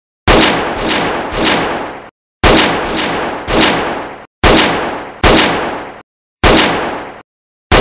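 Gunshot sound effects: about nine sharp shots in quick bursts of two or three, each trailing off in a short echoing tail, with dead silence between bursts.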